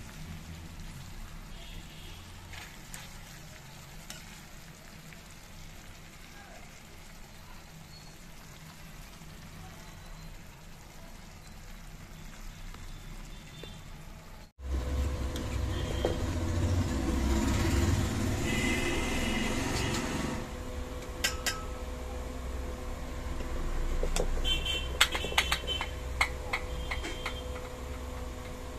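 A metal spatula scrapes and clinks against a steel pan as cooked chillies are stirred and dished out, over a steady low rumble. It becomes louder suddenly about halfway through, with a run of sharp clicks of metal on metal near the end.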